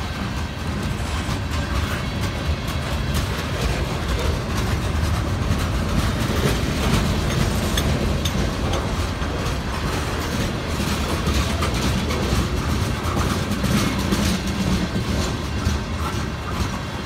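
Mixed freight train's cars (boxcars, a flatcar and tank cars) rolling slowly past on wet rails, steel wheels clicking and rumbling on the track, with the train's brakes applied.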